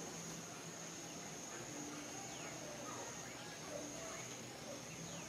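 Steady high-pitched drone of evening insects, with faint scattered short calls in the background.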